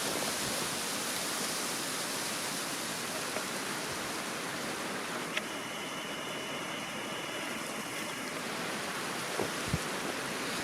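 Steady rushing noise. About five seconds in there is a click, followed by a faint high whine lasting about three seconds.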